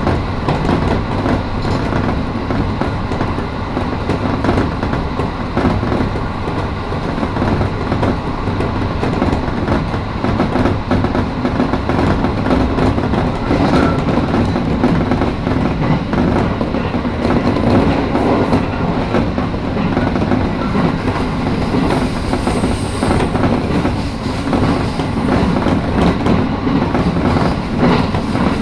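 Electric local train running along the line, heard from inside the front car: a steady rumble of wheels on the rails.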